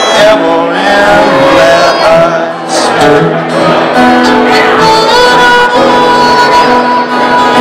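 Fiddle and acoustic guitar playing a tune together live, the fiddle's long, sliding melody notes over the guitar's plucked accompaniment.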